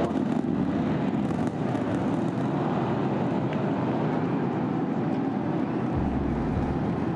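Starship Super Heavy booster's 33 Raptor engines at ignition and liftoff: a loud, steady rocket rumble with crackle, joined by a deeper low rumble about six seconds in.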